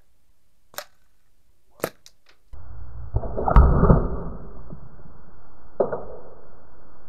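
Airgun shooting: sharp single cracks, three of them in the first two and a half seconds. Then a steady low noise begins, with a louder burst of rumbling around three to four seconds in that carries another sharp crack, and one more crack near six seconds.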